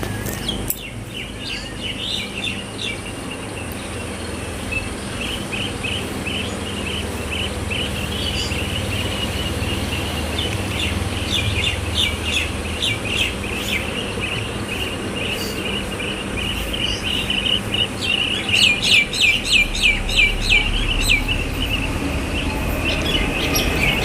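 Small birds chirping, many short high chirps overlapping, building to a fast run of repeated chirps that gets louder in the last few seconds.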